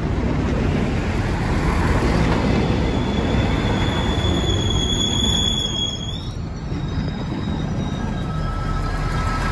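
Eurobahn regional multiple unit passing close by: the steady rumble of its wheels and running gear, with a high wheel squeal that starts a couple of seconds in and cuts off suddenly about six seconds in.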